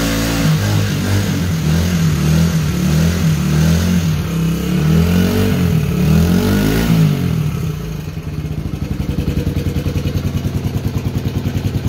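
1994 Suzuki DR125's single-cylinder four-stroke engine running through its freshly patched muffler, revved up and down repeatedly, then dropping back about eight seconds in to a steady idle with an even, rapid putter.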